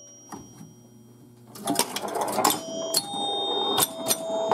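1973 Gottlieb Home Run electromechanical pinball machine in play: a fading ring at first, then from about a second and a half in its coils and relays clacking while its scoring bells ring several times.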